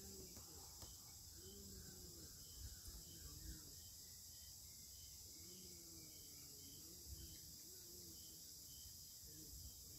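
Near silence: faint outdoor ambience with a small insect, likely a cricket, chirping faintly and regularly, about three chirps every two seconds.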